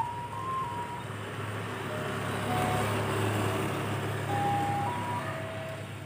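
Sooty-headed bulbul giving short, clear whistled notes that step up and down in pitch, while a passing vehicle's engine and road noise swells and fades around the middle.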